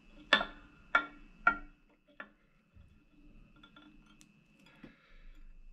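Light metallic clinks, each with a brief ring, from small metal fly-tying tools knocking against the vise while oval gold tinsel is wrapped on the hook. Four clear clinks come in the first couple of seconds, then a few fainter ticks and a soft rustle of handling.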